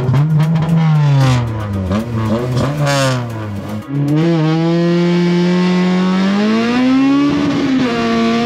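Honda K20A four-cylinder engine in a Civic revving and accelerating hard from a standing start. The pitch swings up and down several times, then climbs steadily, heard from inside the cabin, with a brief dip and recovery near the end as it changes gear.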